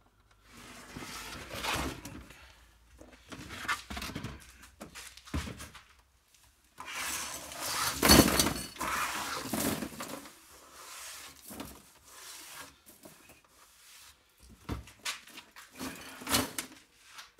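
Pieces of scrap aluminium clattering and rattling in a plastic crate as they are handled and shifted, with the crate knocking and scraping; the loudest clatter comes about eight seconds in.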